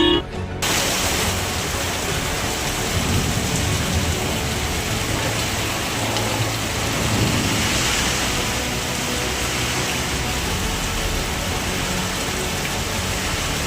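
Heavy rain pouring down steadily as a dense hiss, with a low rumble underneath.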